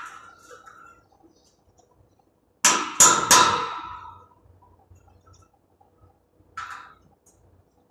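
Claw hammer striking a steel tube frame: three quick ringing blows about two and a half seconds in, then a single lighter blow near the end.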